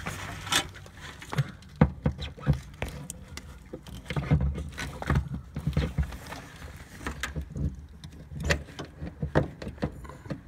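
Irregular clicks, knocks and rubbing as a replacement fuse box taken from an '85 Chevy pickup is handled and fitted against a bracket under the dash, with dull handling bumps on the microphone.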